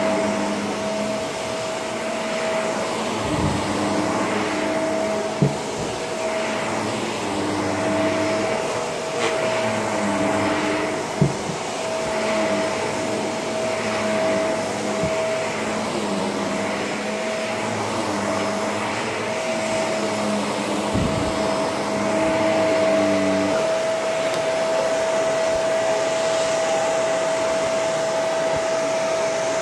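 Shark vacuum cleaner running, with a steady high whine over the rush of air and a lower hum that comes and goes every second or two before dropping out near the end. Two sharp clicks cut through it.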